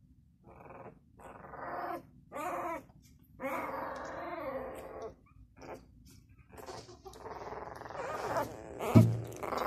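Six-day-old Labrador puppies whimpering and squeaking in a run of short, wavering cries, with a thump near the end.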